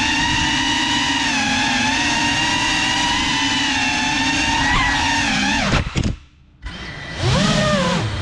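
Small quadcopter drone's electric motors and propellers whining steadily at high pitch. About six seconds in the motors cut out briefly, then spin back up with the pitch rising.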